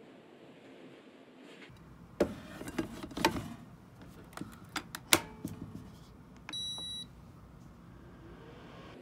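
Knocks and clicks as the inner pot is set into a Tiger tacook rice cooker and the lid is shut, the loudest a sharp click near the end of the run. About six and a half seconds in comes a single short electronic beep as the cooker's cook button is pressed.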